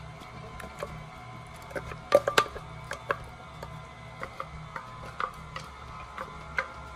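Spatula scraping and knocking inside a glass blender jar tipped over a steel bowl, as thick blended fruit is scraped out. Irregular clicks and knocks, with a cluster of louder ones about two seconds in.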